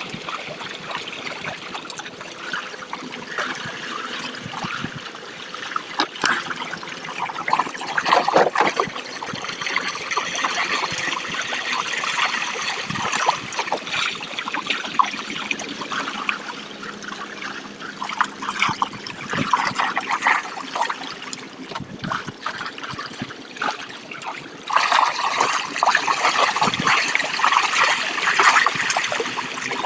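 Water trickling and splashing unevenly, louder about eight seconds in and again near the end.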